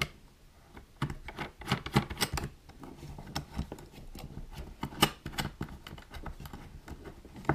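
A metal lock nut being threaded by hand onto a thermostat's cable gland connector: irregular small metallic clicks and scrapes, with a few sharper clicks about a second, two seconds and five seconds in.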